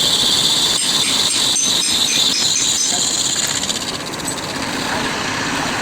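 A loud, high-pitched mechanical hiss with a few faint clicks, which fades out about four seconds in.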